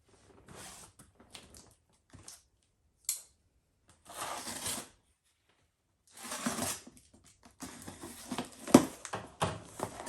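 Cardboard shipping boxes and packaging being handled and opened: on-and-off rustling and scraping, with a few sharp knocks near the end.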